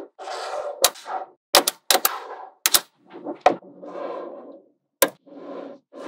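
Small magnetic balls snapping together as rows are pressed into a slab: a string of sharp clicks, several in quick pairs, with soft rattling of balls shifting and rolling against each other between the snaps.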